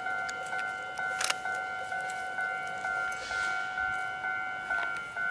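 Railway level-crossing warning bell ringing, a steady two-tone electronic ding struck about twice a second, warning of an approaching train. A single sharp clack sounds about a second in.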